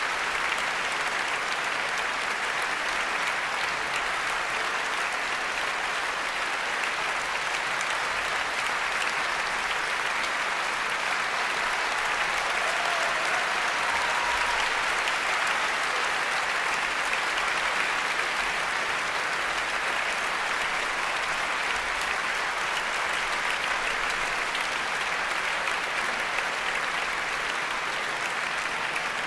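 Audience applauding: dense, steady clapping that swells a little midway.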